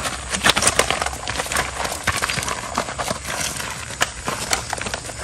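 Scuffling footsteps of sandalled feet on loose gravel as people grapple: irregular crunches and slaps, several a second.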